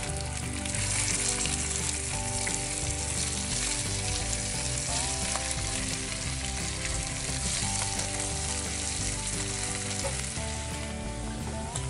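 Bacon sizzling steadily as it fries in two cast iron skillets.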